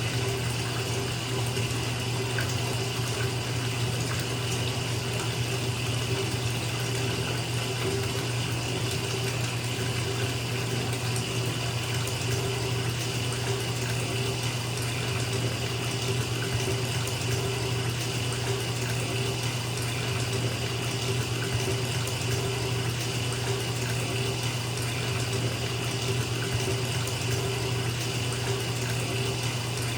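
Bathtub filling from a running tap: a steady, even rush of water pouring into the tub, with a low hum underneath.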